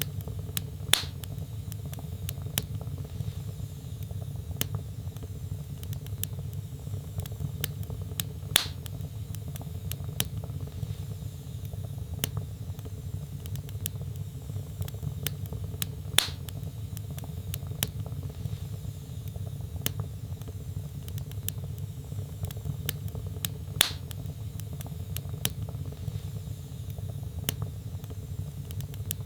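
Log fire burning in a fireplace: a steady low rumble under scattered small crackles, with four louder pops evenly spaced about seven and a half seconds apart.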